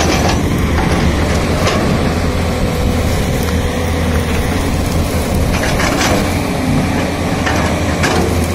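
JCB 205 tracked excavator's diesel engine running steadily under load as the bucket pushes through brush and small trees, with a few sharp cracks of branches snapping.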